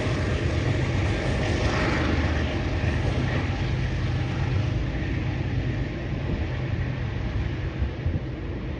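Train rumbling with a steady low drone and hiss, slowly fading away.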